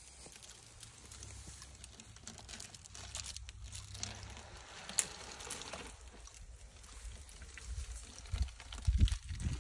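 African elephant bull browsing from a tree: leaves and twigs rustling and crackling as the trunk strips the branches, with a sharp snap about five seconds in and a few low thuds near the end.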